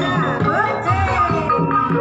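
Live Javanese jaranan gamelan music: kendang drum strokes keep a steady beat under ringing metallophones and gongs, with a melody over them that slides up and down in pitch.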